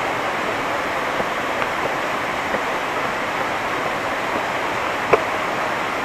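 Waterfall rushing steadily, an even hiss of falling water with no let-up. A single sharp tap about five seconds in.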